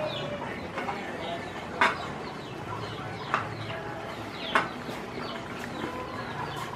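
A chicken clucking in the background: a handful of short, separate clucks spaced a second or so apart.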